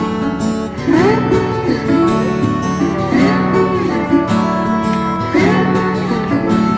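Background music led by acoustic guitar, with phrases repeating about every two seconds.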